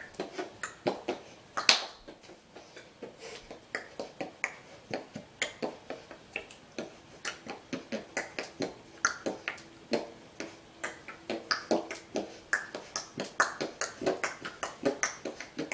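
A rapid, irregular run of short sharp clicks and taps, several a second, some with a brief pitched ring.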